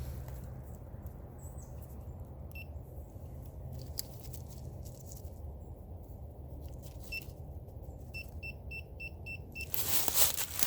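Metal detector giving short high beeps: one, then another some seconds later, then a quick run of about six. Near the end, a loud burst of scraping and rustling.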